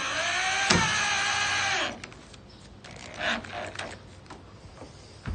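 Cordless drill driving a screw home through the camper's edge trim, its motor whining with the pitch dipping as the screw loads it, then stopping about two seconds in.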